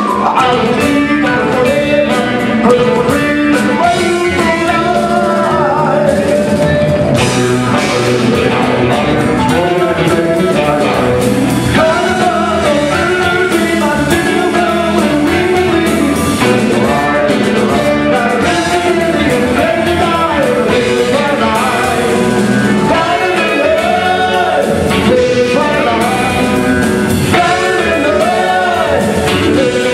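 Live band music: a man sings lead over electric guitar, marimba and a drum kit.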